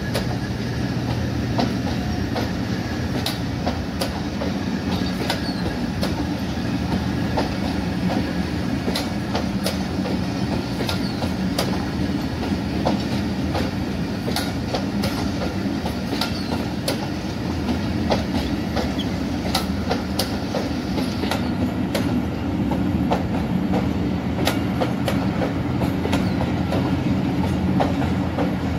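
Passenger coaches of an express train rolling past: a steady rumble of the wheels on the track, with irregular clacks as the wheels cross rail joints.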